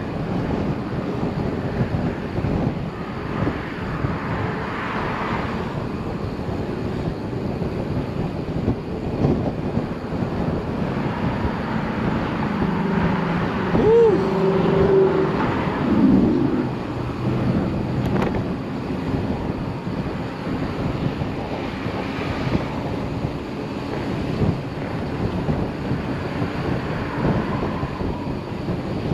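Wind buffeting the microphone over a steady hiss of road traffic. A motor vehicle passes about halfway through, adding a low engine hum that swells and fades.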